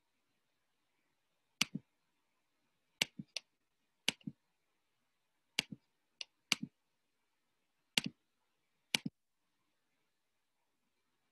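Computer mouse clicking: about eight separate clicks at uneven intervals, most of them a quick double tick of press and release.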